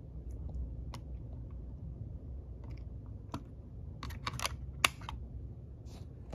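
Scattered plastic clicks and taps from fingers handling an opened Sony WM-SXF30 Walkman Sports cassette player, with a cluster of sharper clicks about four to five seconds in.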